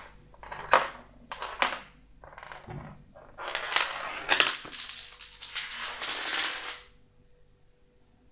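A walnut batted about on a tile floor by a kitten, with a few sharp clacks, then about three seconds of close, scratchy rustling as the kitten presses right up against the recording phone.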